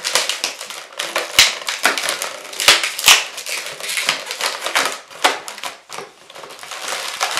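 Inflated latex modelling balloons squeaking and creaking as hands squeeze and twist them, a quick, irregular run of short rubbery squeaks with a few louder ones.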